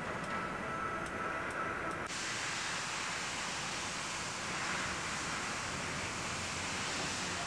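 Compressed air hissing steadily from a fuel-valve pressure-test rig as the air is vented. The hiss starts suddenly about two seconds in, after a faint steady tone.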